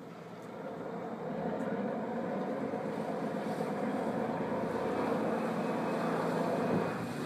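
A fishing boat's diesel engine running under throttle as it manoeuvres against a strong tide, getting louder about a second in and easing off near the end.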